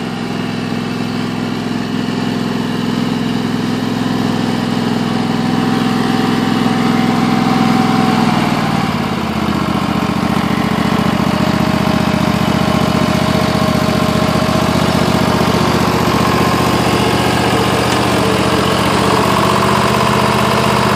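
Riding lawn tractor's engine running steadily while the tractor drives; its note drops in pitch about nine seconds in and then holds.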